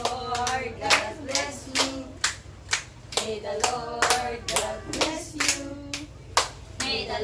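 Steady rhythmic hand-clapping, about two claps a second, under people singing.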